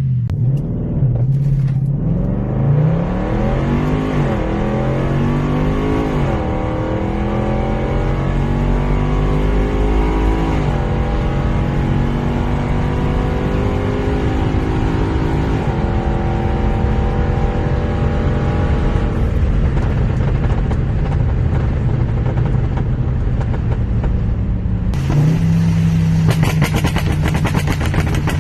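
Range Rover Sport's 5.0-litre supercharged V8, tuned to Stage 1+ with downpipes, accelerating hard through the gears: the engine note climbs in pitch and drops back at upshifts about 6, 10 and 15 seconds in, holds steady, then eases off around 19 seconds. Near the end the exhaust turns to a rapid crackling.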